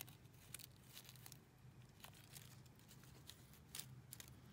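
Faint rustling of tissue paper and packaging being handled, with scattered light clicks and crinkles over a low steady room hum.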